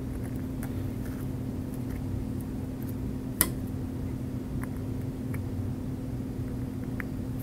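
Faint clicks of a steel needle driver and suture instruments being handled while a knot is tied, with one sharper click about three and a half seconds in, over a steady low hum.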